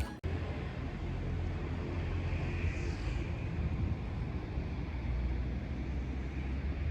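Low, steady rumble of an approaching diesel train, with a faint hiss above it.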